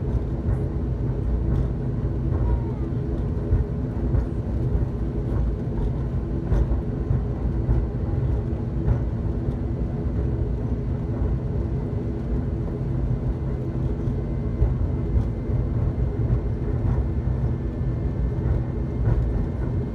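Steady drone of an ATR 72-600's Pratt & Whitney PW127 turboprop engines and propellers heard from inside the cabin while taxiing at low power. It is a deep rumble with a steady hum on top, and occasional light knocks.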